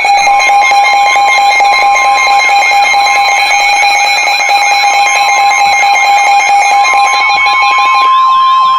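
Emergency Alert System attention signal: a loud, steady two-tone alarm with a warbling tone over it, signalling a severe thunderstorm warning. About eight seconds in the lower tone drops out and the higher tone holds on alone.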